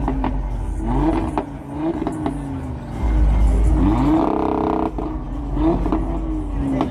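Audi RS3 Sportback's turbocharged five-cylinder engine revved in a string of quick blips, each rising and falling in pitch, with one longer rev held high about four seconds in that cuts off sharply before the blips resume.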